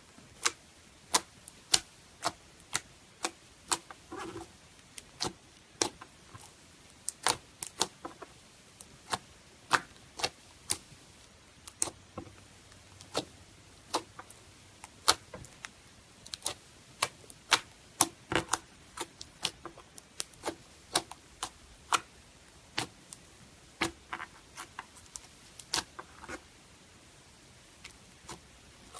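Slime being worked by hand, making sharp, irregular clicking pops, roughly one or two a second.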